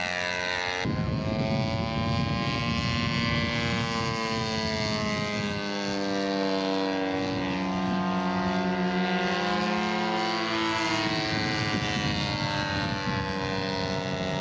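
Engine of a large radio-controlled Stearman biplane model in flight: a steady propeller drone whose pitch slowly rises and falls as the plane moves about the sky.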